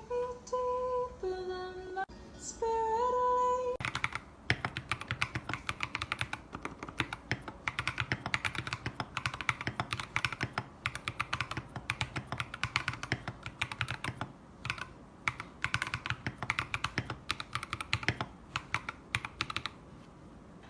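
A few held musical notes open, then typing on a Leaven K28 mechanical keyboard: a rapid, continuous run of key clicks, with brief pauses, for about sixteen seconds.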